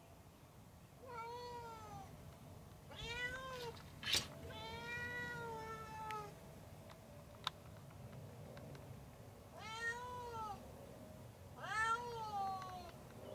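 Domestic cat meowing to be let in: five drawn-out meows, each rising then falling in pitch, with a sharp tap about four seconds in.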